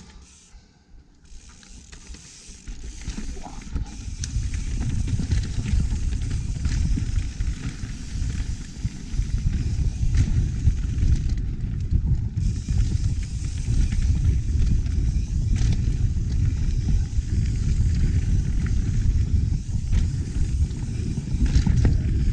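Wind buffeting a chest-mounted GoPro microphone, mixed with mountain bike tyres rolling over a dirt trail as the bike gets under way downhill. It is quiet for the first couple of seconds, then a steady loud rumble from about four seconds in.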